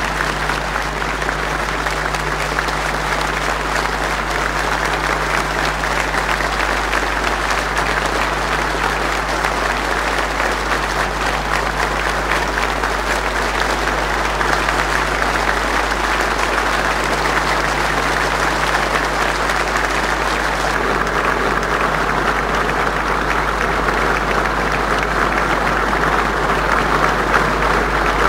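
Large hall audience of several thousand applauding at length, a dense, steady mass of clapping that swells slightly toward the end.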